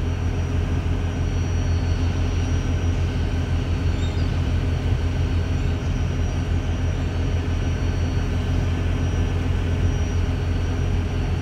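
A car ferry under way: the steady low drone of its engines under a rush of water and wind.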